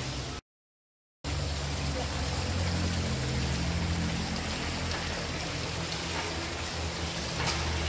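Steady rushing noise with a deep low rumble, as heard inside a tunnel. The sound cuts out completely for under a second near the start.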